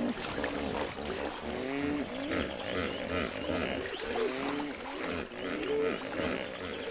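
A group of hippopotamuses grunting and honking: many short calls overlapping, each sliding up or down in pitch.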